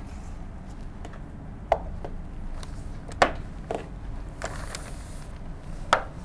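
Hands pressing and patting a paper poster flat against a whiteboard: four short sharp taps, loudest about two and three seconds in, with a soft rustle of paper in between.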